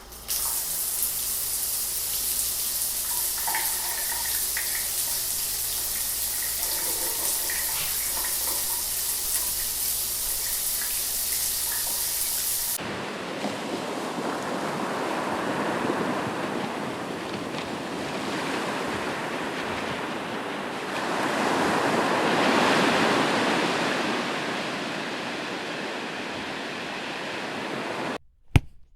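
Steady rushing water, from two different water sound-effect clips played back to back. The first is a bright, hissing rush. About 13 s in it cuts to a fuller, deeper rush that swells and fades again in the second half.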